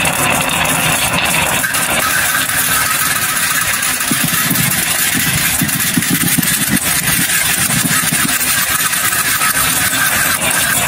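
Many glass marbles rolling down a carved wooden wave-track marble run: a steady rumble with dense clicking as they run through the curved wooden pockets and knock against each other. The low rumble swells for a few seconds in the middle.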